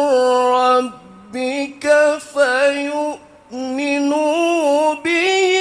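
A male qari reciting the Quran in the melodic mujawwad (tilawah) style, holding long ornamented notes with wavering turns, in several phrases broken by short breaths, carrying on the verse "annahul-haqqu min rabbika".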